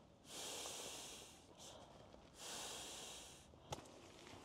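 Air hissing out of a red padded sleeping mat as it is pressed and rolled up, in two bursts of about a second each, followed by a short click.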